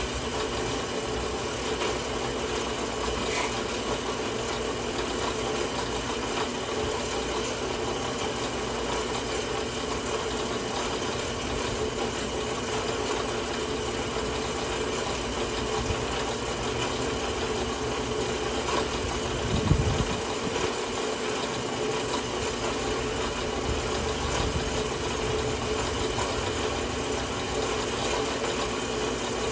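WEN 4x6 horizontal metal bandsaw running steadily and slowly cutting through metal stock clamped in its vise, a constant motor and blade hum. A brief low knock sounds about twenty seconds in.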